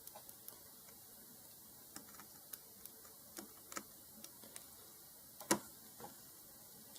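Light, irregular clicks and taps of small metal hand tools working on a phone at a repair bench, with one louder tap about five and a half seconds in.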